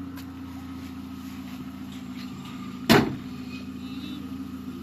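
Pickup truck engine idling steadily; about three seconds in, the driver's door is slammed shut with a single loud bang.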